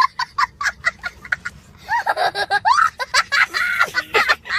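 A person laughing in quick, repeated short bursts, followed by longer laughing sounds whose pitch rises and falls.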